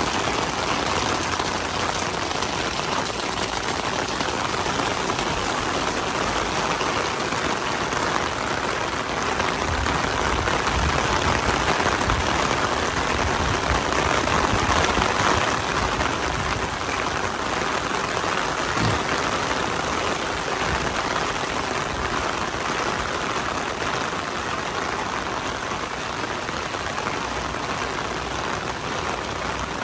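Steady rain falling, a constant hiss that swells a little around the middle, with a low rumble of traffic underneath.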